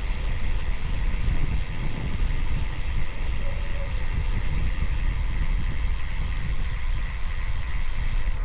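Wind buffeting the microphone of a moving road bike, with a steady hiss of tyres on wet tarmac.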